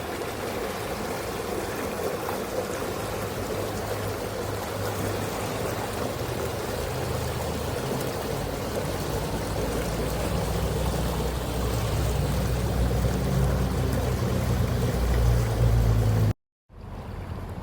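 Spring water flowing steadily, with a low rumble that builds toward the end; it cuts off abruptly about 16 seconds in and fainter flowing resumes.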